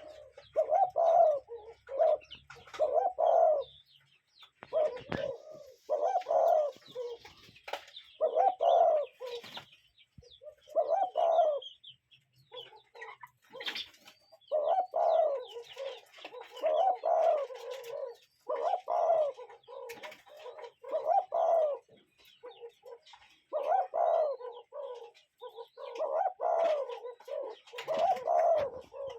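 A bird giving runs of short, low calls, about two a second, broken by pauses of a second or two, with fainter chirps of other birds behind.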